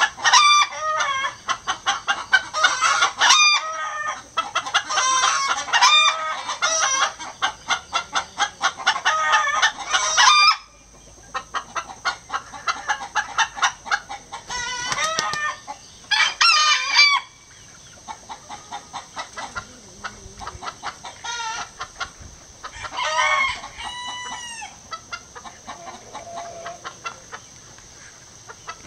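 Chickens cackling an egg song, with a Gold Sebright bantam rooster joining in: a fast run of repeated calls for about the first ten seconds, then shorter bursts of cackling, and a rooster crowing about two thirds of the way through.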